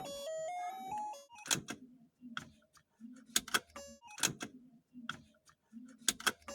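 Aftermarket seat-belt reminder buzzer playing its electronic melody in stepped notes, which keeps sounding until the belt is buckled; it cuts off about a second in. Scattered clicks and knocks follow.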